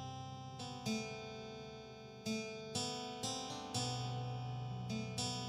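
Soft instrumental background music: plucked, ringing acoustic guitar-like chords over a sustained low bass, each new chord struck every half second to a second.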